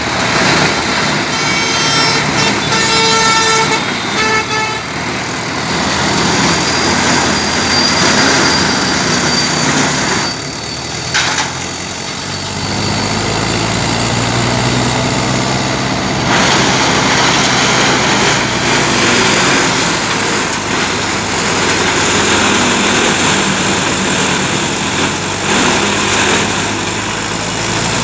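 Trakstar 545 tractor's diesel engine running a PTO-driven wood-crusher (sawdust-making machine), a dense steady mechanical din. A high pitched horn-like tone sounds for about four seconds near the start. About eleven seconds in the sound dips briefly, then settles on a lower, steady engine note.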